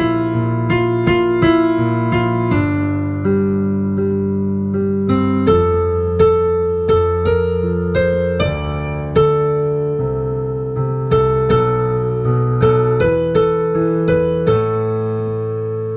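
Solo piano accompaniment playing chords with a melody on top, each note struck and then dying away.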